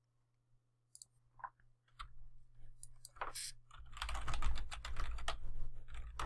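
Typing on a computer keyboard: a few separate keystrokes at first, then a quick, steady run of clicking keys from about three seconds in.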